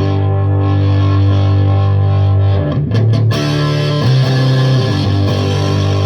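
Electric guitar through a Marshall 1987X valve amp head turned up for power-stage breakup: distorted chords left to ring, with a few quick strums and chord changes about halfway through before it settles back on the opening chord.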